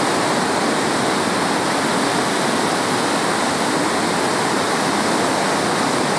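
Large whitewater river rapid rushing steadily: a dense, unbroken noise of churning water.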